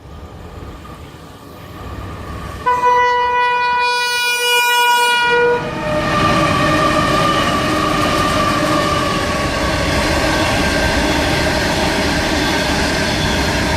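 Empty coal train led by diesel locomotive XRN 013 arriving: it grows louder, then sounds its horn in one long chord of about three seconds, starting about three seconds in. After that the locomotive's engine and the rolling wagons run loud and steady as the train passes.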